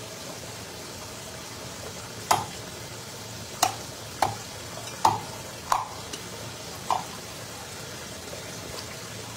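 Tap water running steadily into a basin at a sink, with about six sharp knocks that ring briefly, spaced irregularly through the middle of the stretch, as a knife and fish are handled against the basins while the fish are cleaned.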